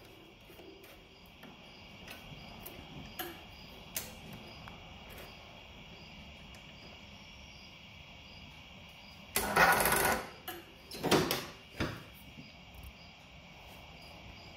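Crickets chirping steadily in the background, broken about two-thirds of the way through by a few loud, short bursts of noise and some small clicks.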